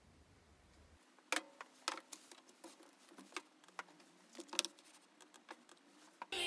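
Irregular light taps and clicks of objects being handled and set down on a desk, a few sharper knocks among them, in a quiet room.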